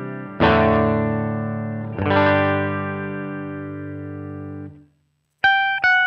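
Electric guitar played through a Line 6 Helix modeler: two strummed chords about a second and a half apart, each left to ring out and fade, cut off just before five seconds. After a brief silence, a new part of single picked notes begins near the end.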